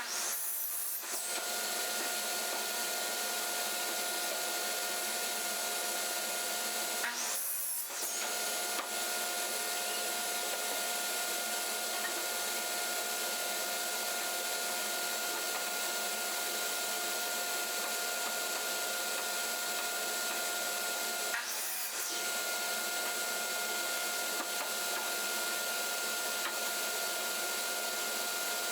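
An electric motor running steadily with a constant whine, briefly broken three times.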